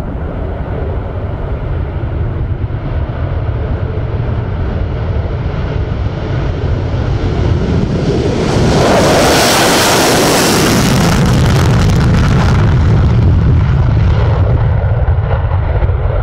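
MiG-31 Foxhound's twin D-30F6 afterburning turbofans at full takeoff power on the runway roll, a continuous jet roar and rumble. It builds steadily, turns harsh and hissing as the jet passes close about nine seconds in, then settles into a heavy low rumble as it moves away.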